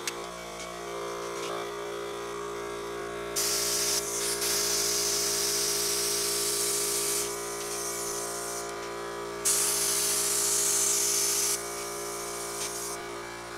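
Handheld plasma cutter cutting 16-gauge sheet steel: two long spells of loud hissing, each a few seconds, with quieter hiss between, over a steady machine hum.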